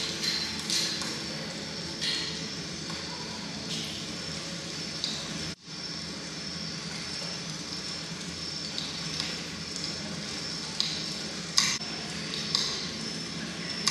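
Crackling-fire soundscape of a light-and-sound bonfire installation: a steady hiss with sharp pops every second or so, over a low steady hum.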